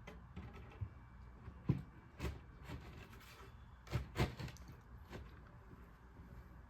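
Wooden closet panels being fitted together onto dowels and cam bolts: a handful of short knocks and bumps, the loudest two around the middle, over a faint steady hum.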